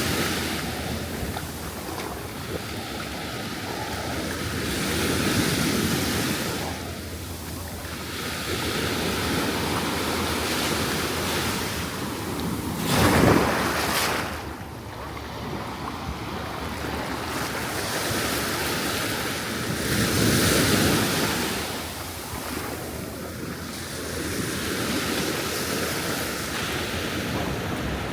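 Ocean surf washing in and out along a beach in slow swells every several seconds, with wind on the microphone; the loudest surge comes about halfway through.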